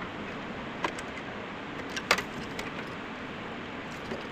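Air cooler running with a steady whooshing noise, with two sharp metallic clicks, the louder one about two seconds in.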